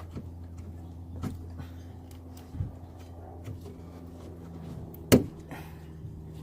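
Plastic trim clips on a car being pried loose by hand: scattered small clicks and knocks, then one loud sharp snap about five seconds in as a clip pops free, over a steady low hum.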